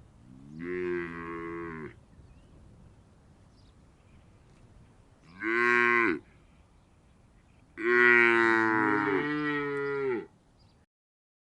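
Cows mooing: three calls, a short one just after the start, a brief one about five and a half seconds in, and a longer one lasting about two and a half seconds near the end.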